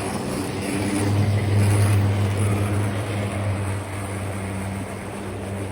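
O scale model train running on a layout: a steady electric motor hum with rumbling wheels that swells about a second in and eases off near four seconds as the train passes.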